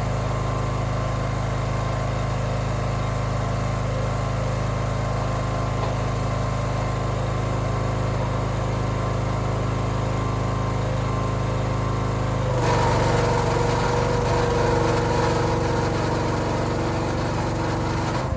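A small engine running steadily at constant speed. About twelve seconds in it turns louder, with a changed, higher pitch.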